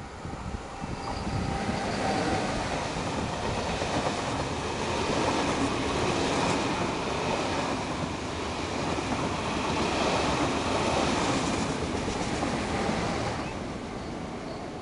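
Passenger train of double-deck coaches hauled by a Lok2000 electric locomotive passing at speed. The sound builds over the first couple of seconds, holds steady while the coaches go by, then fades away near the end.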